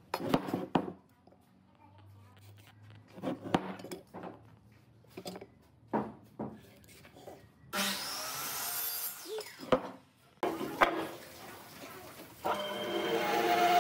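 Hard clicks and knocks of a steel ruler and pen handled against a hardwood block on a workbench, then a few seconds of scratchy rasping. Near the end a band saw starts and runs with a steady machine tone.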